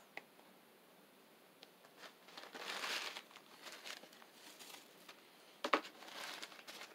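Faint handling sounds: a soft click near the start, paper crinkling and rustling in the middle, and a sharp knock shortly before more rustling near the end.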